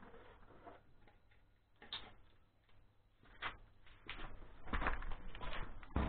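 Scattered light knocks and clicks of hand work and footsteps on a garage floor, sparse at first and coming thicker in the second half, with a close low rumbling bump right at the end as the camera is handled.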